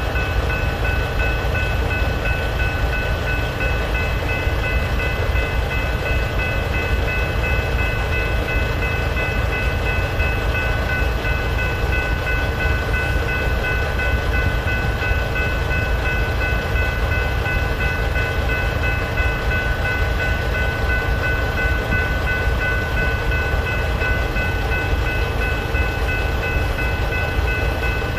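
Railroad crossing's General Signals type-3 electronic bell ringing steadily, over a steady low rumble.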